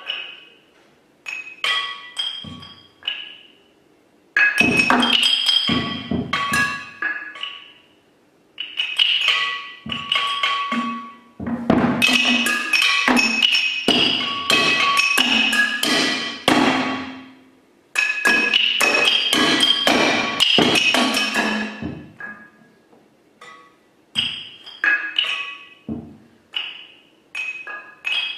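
Solo percussion on a table of small instruments and objects struck with sticks and mallets: fast, irregular strikes with short ringing tones, gathered into dense loud flurries that break off into pauses, with sparser single strokes at the start and near the end.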